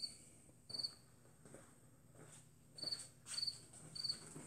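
A cricket chirping: five short, high chirps at uneven intervals. A few faint knocks come from the golf cart's metal rear frame being handled.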